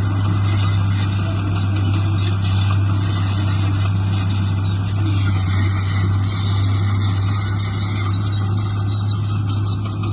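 Heavy diesel machinery engine running steadily, a constant deep hum under a dense mechanical noise.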